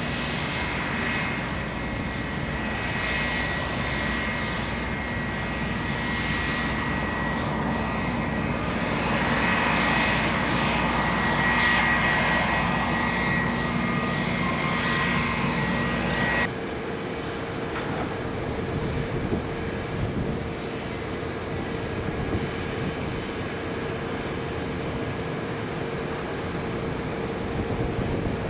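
Bombardier Challenger 350's twin Honeywell HTF7350 turbofans running at taxi power: a steady high-pitched whine over a rushing hiss. About halfway through the sound drops suddenly to a quieter, lower steady engine tone as the jet sits lined up on the runway.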